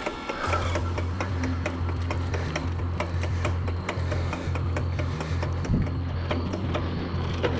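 Trek Marlin 5 mountain bike clicking rapidly and rhythmically as it is pedalled, several clicks a second, like a locomotive, over a steady low hum.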